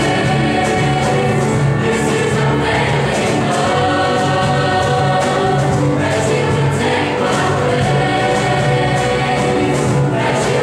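A school gospel choir singing with accompaniment and a steady beat.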